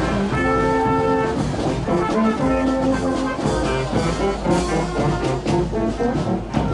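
Brass band music, with trumpets and trombones playing a melody in held notes.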